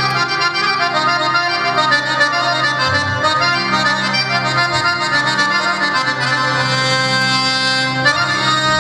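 Oriental belly-dance music: a flowing, sustained melody over a steady low note, without drums.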